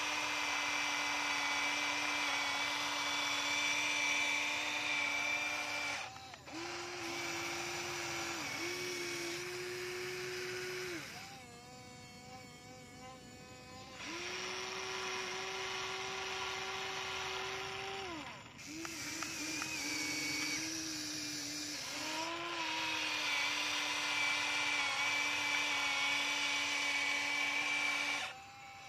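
Electric motors of a remote-control model excavator whining steadily as it digs, stopping and restarting at a slightly different pitch each time a new movement starts. A quieter, higher whine runs for a few seconds near the middle.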